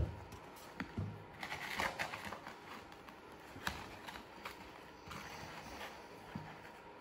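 Hands kneading butter and sugar together in a bowl for shortcrust pastry: faint soft squishing and rustling with a few light scattered taps.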